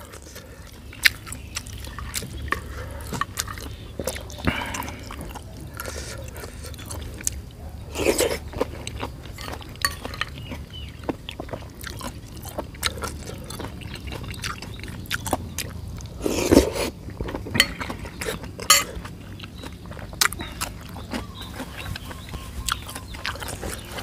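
Eating sounds: chewing, with a metal spoon clicking in a clay bowl of liquid blood soup and small crunches and clicks throughout. Twice, about a third and two thirds of the way through, a louder short sound stands out.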